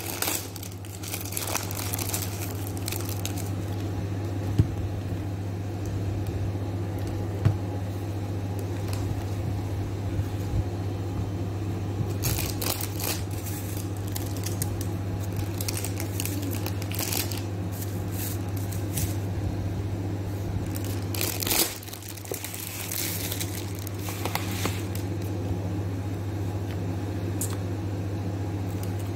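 Rustling and crinkling noises with scattered clicks, over a steady low hum.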